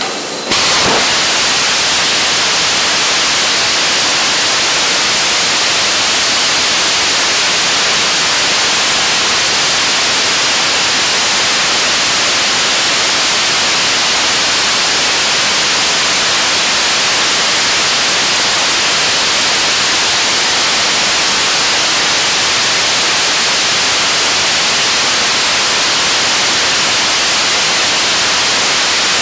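A 75-tonne-class liquid-propellant rocket engine on a test stand ignites about half a second in, then fires steadily on a hot-fire test. Its exhaust makes a constant, loud rushing noise with no pitch to it.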